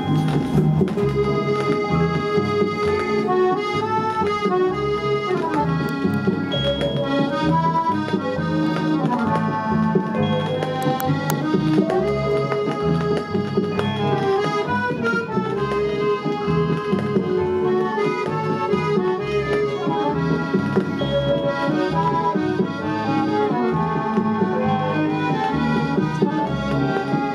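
Music playing from a 7-inch vinyl single on a 1963 Fidelity UA7 record changer, a continuous melodic tune without pauses.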